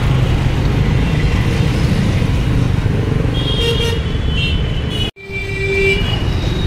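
Busy road traffic running steadily, with vehicle horns honking a couple of times in the second half; the sound drops out for a moment about five seconds in.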